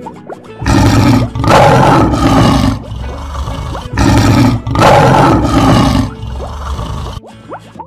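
Lion roar sound effect, heard twice, each roar about two seconds long, starting near the start and again about four seconds in. Faint plucked music plays underneath.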